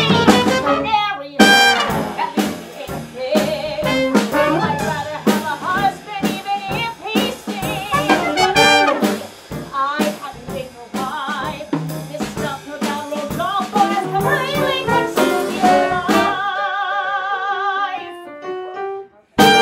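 Brassy, jazz-style band music from a musical's pit band, busy with sharp hits. About three-quarters of the way through it thins to a held chord with vibrato, and it ends on a single loud short hit.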